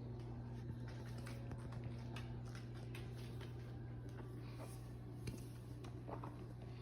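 Corgi hiccuping: short, faint clicks at uneven intervals, over a steady low hum.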